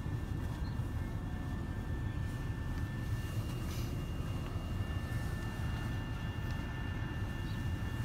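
Freight train cars rolling through a grade crossing: a steady low rumble, heard from inside a car.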